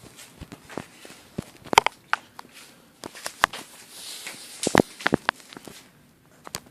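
A series of irregular clicks and knocks, with a brief hiss about four seconds in.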